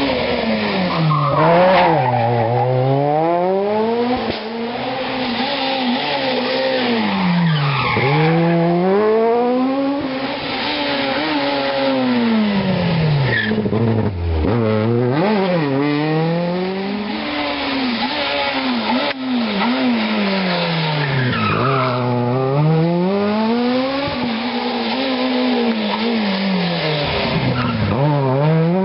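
Rally cars, among them a Citroën Saxo and a Renault Clio, taking a tight hairpin one after another at full competition pace. Each car's engine revs fall as it brakes and downshifts into the bend, then climb hard again as it accelerates out, in a rise-and-fall cycle about every six seconds.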